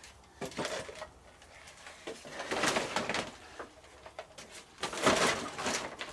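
Plastic rustling and crinkling in three bursts as a bundle of plastic bottle floats with their fishing line is handled and stuffed into a woven plastic sack.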